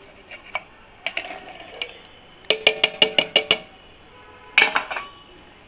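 Ringing clinks of steel kitchenware as chutney ingredients go into a mixer-grinder jar: a few scattered clicks, then a quick run of about seven strikes around the middle, and a short rattle near the end.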